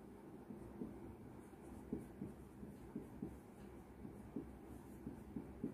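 Marker pen writing on a whiteboard: faint, short squeaks and scratches of the tip at each stroke, coming irregularly.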